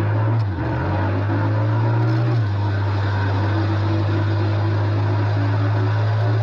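Harley-Davidson Low Rider ST's V-twin engine running steadily under way. Its note dips briefly about half a second in, and its pitch steps down about two and a half seconds in.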